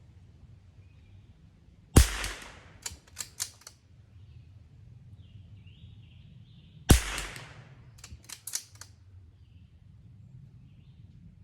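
Two rifle shots about five seconds apart, each a loud sharp report with a short ring-out, followed within a second or so by a few quick sharp clicks.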